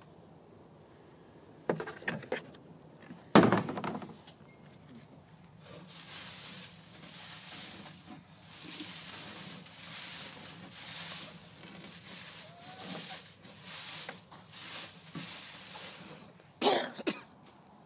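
Straw bedding rustling and crackling in repeated swells, roughly one a second, with a few sharp knocks near the start and one near the end.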